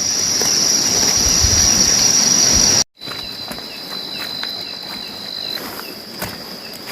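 Insects trilling in a steady, high-pitched drone over a background hiss. The sound cuts out for an instant a little under three seconds in. A second, slightly lower insect tone then joins until just past the middle, with faint repeated chirps.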